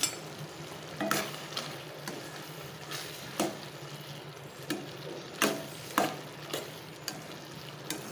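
A ladle stirring thick cucumber and lentil curry in a stainless steel kadai as peanut powder is mixed in, scraping and clicking against the pan irregularly about once or twice a second. Under it runs a steady sizzle from the simmering gravy.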